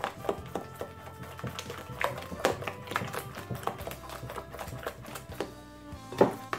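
Irregular clicks and taps of a spatula stirring batter against a glass mixing bowl, with one louder knock near the end, over background music.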